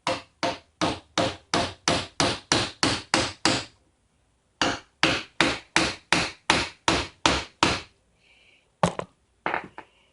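Hammer striking a screwdriver driven against a Master Lock padlock's riveted bottom plate to pry it off. Two long runs of steady, even strikes, about three a second, with a pause of about a second between, then a few last strikes near the end.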